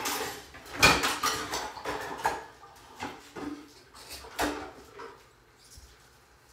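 Dishes and utensils being handled at a kitchen counter: an irregular series of knocks and clatter, loudest about a second in.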